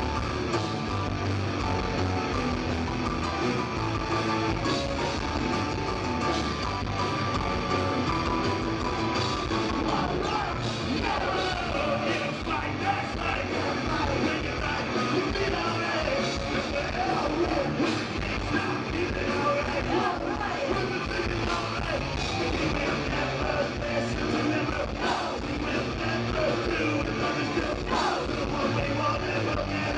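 Live rock band playing electric guitars and drums, with singing.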